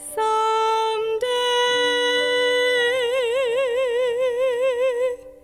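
A young woman singing a long held note with piano accompaniment. About a second in her voice steps up to a higher pitch, which she sustains, adding a wide vibrato about three seconds in, before cutting off shortly before the end.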